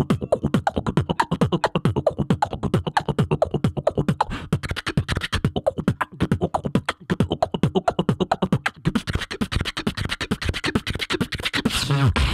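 Human beatboxing into a handheld microphone, amplified: a fast, dense rhythm of sharp percussive mouth sounds, with a longer pitched sound near the end.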